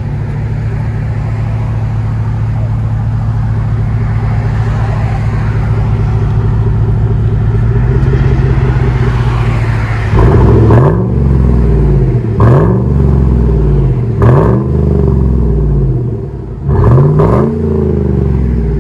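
Exhaust of a 2008 Chevy Tahoe's 5.3-liter V8, running through a Flowmaster FlowFX muffler with the resonator deleted and factory catalytic converters kept. It idles steadily for about ten seconds, then is revved four times in quick blips, each rising and falling back to idle.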